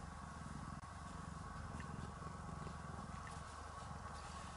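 Domestic cat purring steadily.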